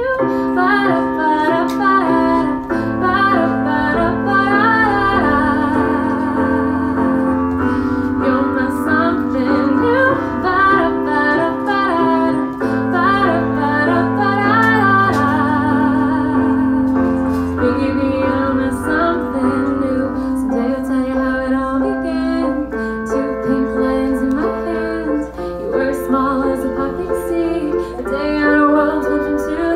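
A woman singing a song live while accompanying herself on a Roland stage keyboard with a piano sound, her voice carrying the melody over held chords that change every few seconds.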